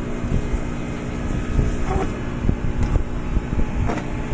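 Steady low mechanical hum, with three light clicks about a second apart from hand work on a TV power-supply board as a bulged capacitor is removed.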